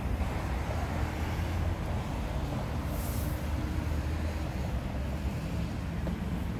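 Steady low rumble of road traffic, with a faint steady engine tone for the first few seconds and a short hiss about three seconds in.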